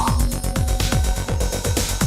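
Background electronic dance music with a steady kick drum, about four beats a second.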